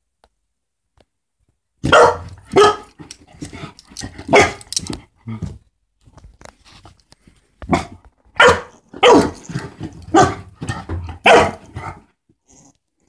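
Yellow Labrador puppy barking in two bouts of short, sharp barks with a lull of a couple of seconds between them.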